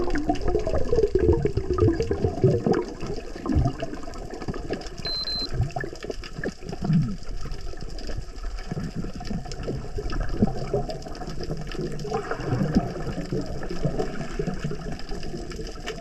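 Muffled underwater water noise picked up by a submerged camera: irregular sloshing, gurgling and bubbling.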